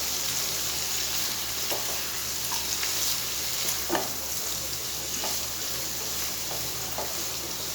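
Chopped vegetables sizzling in hot oil in a pan while they are stirred and mixed with a spoon: a steady sizzle with a scrape or clack of the spoon about once a second.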